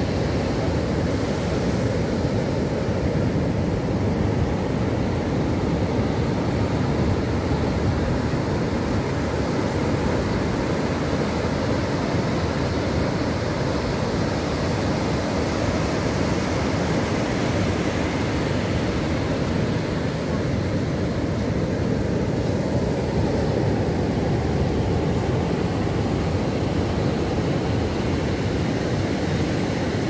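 Heavy surf of the Indian Ocean breaking on a sandy beach: a steady, low rumble of waves with no breaks.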